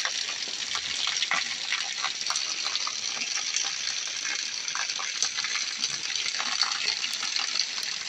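Heavy rain falling on brick paving and walls: a steady hiss thick with the patter of countless drops.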